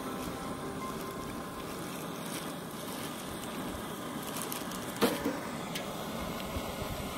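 Steady rushing hiss of a camp stove burner heating a pot of water, with a single sharp knock about five seconds in.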